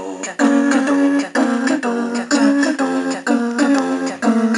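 Commodore 64 SID-chip music: a synthesized tune with sharp note attacks about twice a second.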